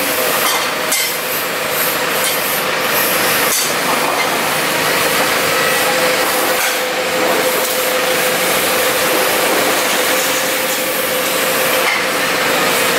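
Forklift engine running steadily, with a steady whine over it and a couple of faint knocks.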